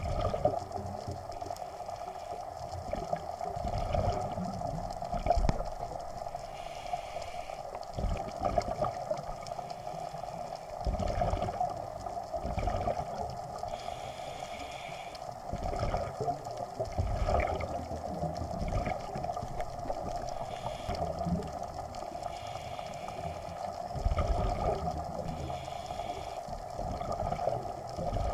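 A scuba diver breathing through a regulator underwater: irregular rumbling bursts of exhaled bubbles every few seconds, with short hissing inhalations between them.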